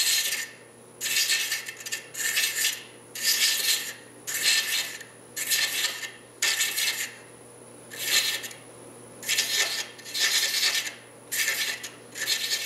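A 16 TPI hand thread chaser scraping male threads into a wooden spigot spinning on a lathe at about 350 RPM: a rasping pass roughly once a second, about a dozen in all, as the chaser is traversed across the work again and again.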